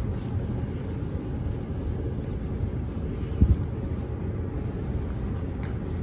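Monte Carlo Designer Max 52-inch ceiling fan running, heard as a steady low rumble of motor and moving air, with one brief low thump about three and a half seconds in.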